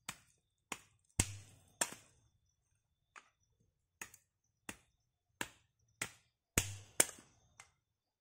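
A series of about a dozen sharp knocks and taps at uneven intervals, a few of them louder with a short ringing tail.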